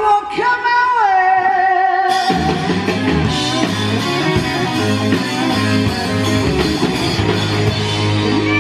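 Live rock band playing outdoors. A singer holds a long note that slides down, then about two seconds in the full band comes in and plays on with a steady beat.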